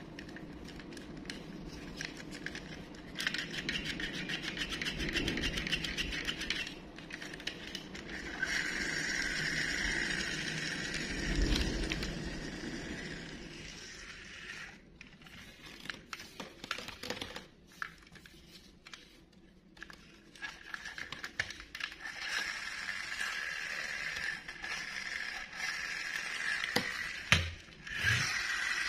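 Plastic toy monster truck handled and pushed back and forth across a tabletop: rapid scraping and whirring from its wheels, in long stretches with a quieter patch of a few knocks around the middle.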